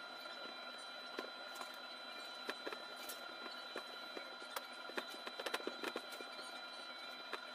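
Light, irregular taps and clicks from hands dredging marinated chicken pieces in a bowl of flour, thickest about five seconds in, over a steady faint high whine.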